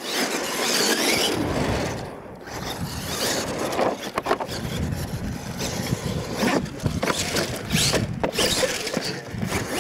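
Radio-controlled monster truck running on a loose dirt course, its tyres scrabbling and spraying dirt, with several sharp knocks and clatters as it hits a ramp and tumbles.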